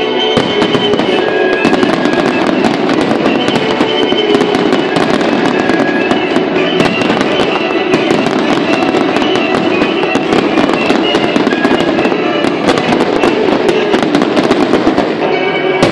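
Fireworks display: aerial shells bursting in a steady stream of sharp bangs and crackles, with music playing throughout.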